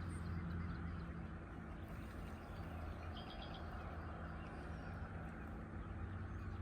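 Quiet outdoor lakeside ambience: a low steady hum with faint bird chirps, including a quick run of chirps about three seconds in.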